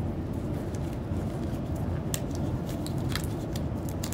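Latex gloves being pulled onto the hands, giving a few short rubbery snaps and crackles in the second half, over a steady low background rumble.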